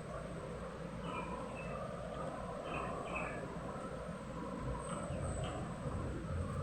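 Steady low background rumble with a few short, faint high chirps scattered through it.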